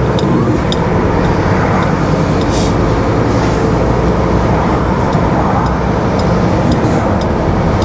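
HGV car transporter on the move, heard from inside the cab: steady engine and road drone, with scattered sharp clicks and rattles throughout.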